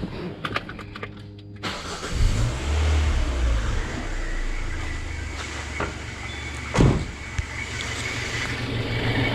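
Citroën C4 2.0 16-valve engine starting about two seconds in after a few clicks, then idling with a steady thin whistle on top, with a single knock near the end. The whistle is the known fault of a failed valve inside the valve cover that lets intake flow back, which also leaves the idle slightly uneven.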